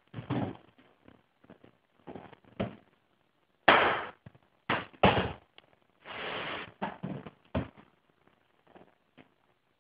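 A hammer striking in irregular blows, about a dozen knocks of varying force with the loudest near four and five seconds in, while freshly steamed canoe gunwales are secured to a wooden bending jig. About six seconds in there is a longer noisy sound lasting about half a second.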